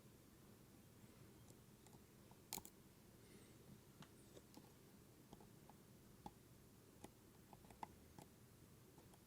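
Faint, irregular clicks of a lock pick and tension wrench working the wafers inside an Illinois Duo wafer cam lock, with one sharper click about two and a half seconds in.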